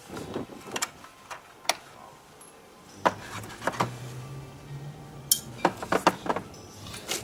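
Metal tools and parts being handled: scattered metallic clicks and knocks, with a low hum for a couple of seconds in the middle.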